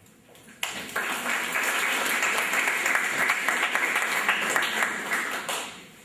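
Audience applauding. The clapping starts about half a second in, holds steady and dies away near the end.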